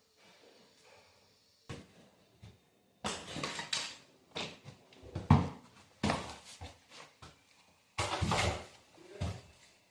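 Irregular knocks and clattering, starting about three seconds in, with the loudest knock near the middle.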